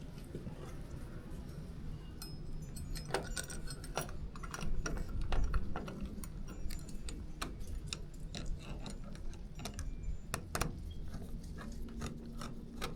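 Irregular small metallic clicks and ticks as screws are driven by hand to secure the rose (round lever trim plate) of a keypad door lock, with loose metal parts clinking now and then.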